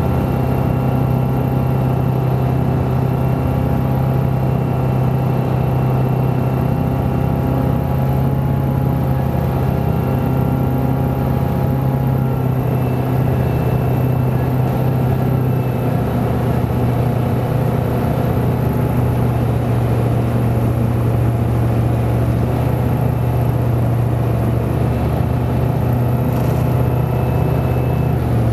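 Tecnam Sierra's Rotax 912 flat-four engine and propeller droning steadily, heard from inside the cockpit on final approach; the pitch drops slightly about twelve seconds in.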